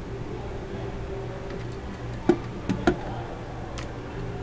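Steady low room hum, broken by three sharp clicks a little past halfway and a fainter one shortly after.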